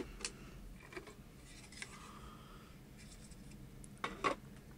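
Faint clicks and scrapes of a screwdriver and hands working the plastic cassette-compartment lid free on a VHS recorder. There are light scrapes early on, then two sharper plastic clicks about four seconds in as the lid comes away.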